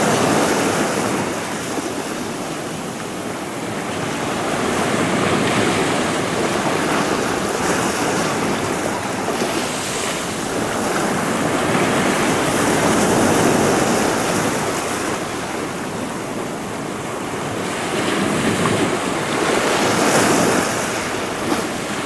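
Sea waves washing onto a sand-and-pebble beach: a steady rushing that swells and fades in slow surges every several seconds, with wind buffeting the microphone.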